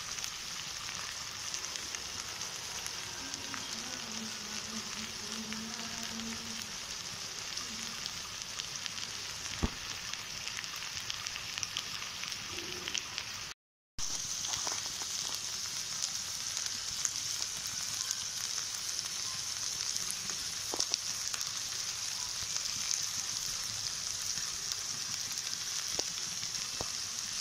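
Small-fish curry sizzling and bubbling in the pan as its little water cooks off: a steady hiss with scattered small pops, breaking off for a moment about halfway through.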